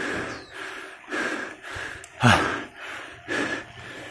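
Heavy, hard breathing of a cyclist pedalling up a steep climb, a loud breath about once a second, with one loud falling vocal exhale about two seconds in: the sound of strong exertion on the ascent.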